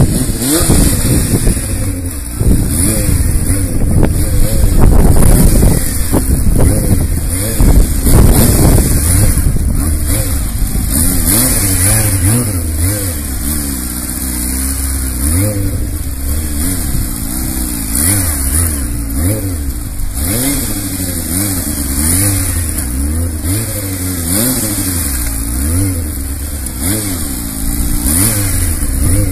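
Sport motorcycle engine revving hard and being blipped up and down while the bike is ridden on one wheel. The revs swell and drop repeatedly, loudest in roughly the first third, then rise and fall about once every second or two.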